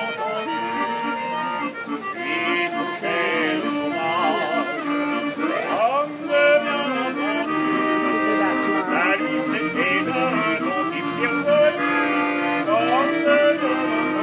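Hand-cranked barrel organ playing a tune in steady held notes and chords, with sliding, wavering pitches weaving over them.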